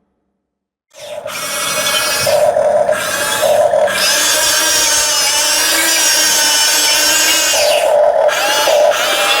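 Electric gear motors of a Huina 1550 remote-control toy excavator whining as it is worked. They start about a second in, stop briefly several times, and shift in pitch as different functions run.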